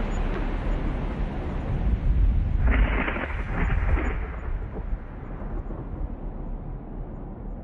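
A low, steady rumble with no voice, with a louder, brighter swell about three seconds in that dies back a second or so later.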